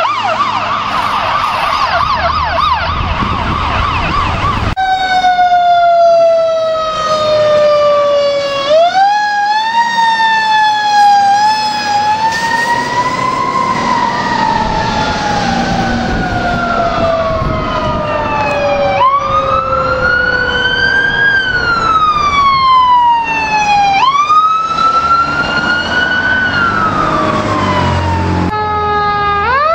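Ambulance sirens. First a rapid yelp over engine noise as one passes close. Then a slow wail that rises and falls, with a second siren overlapping it in the middle and the wail jumping back up quickly twice. Near the end a different siren starts to rise.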